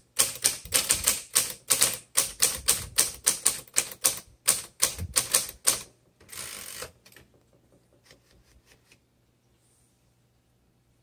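1928 Royal 10 manual typewriter being typed on: a quick run of key strikes for about six seconds, then a short rasp and a few faint clicks.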